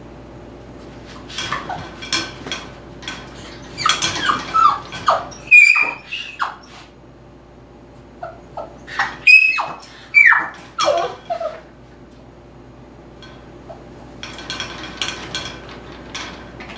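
Eight-week-old Tibetan Terrier puppy whining and yipping in short bursts, loudest around the middle. In between, the wire x-pen rattles as he stands up and paws at its side.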